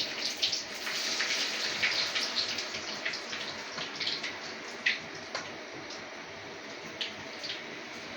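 Potatoes sizzling and crackling in hot oil as they are lowered in to deep fry: a steady hiss with many sharp pops, busiest in the first half.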